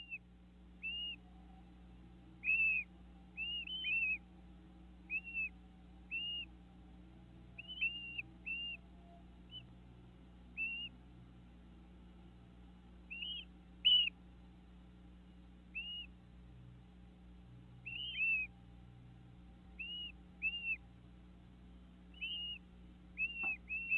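Short, high whistled bird calls repeated every second or two, sometimes as a quick pair of notes, with a faint steady hum beneath.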